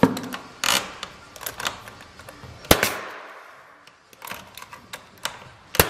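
Bostitch finish nailer firing nails into wooden shoe molding: three sharp shots about three seconds apart, with lighter clicks and knocks between.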